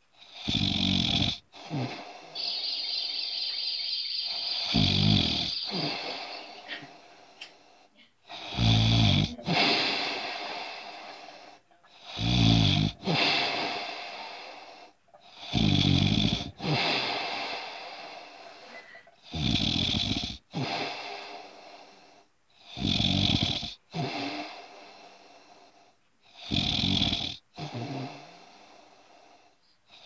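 Steady snoring: a rough, buzzing snore on each breath, repeating about every three and a half seconds, about nine in all. A thin high whistle rides on the breathing for about three seconds, a couple of seconds in.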